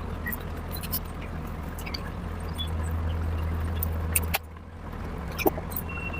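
Close-up eating sounds: chewing and wet mouth clicks and smacks, scattered irregularly, over a low steady hum that drops away abruptly about four seconds in.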